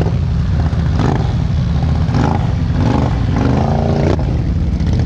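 Off-road vehicle engine running steadily with a deep, low rumble, with faint voices in the background.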